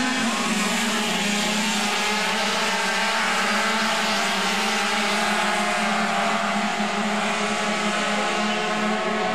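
A pack of 50 cc two-stroke racing mopeds buzzing at high revs through the corners, several engines' pitches overlapping and wavering.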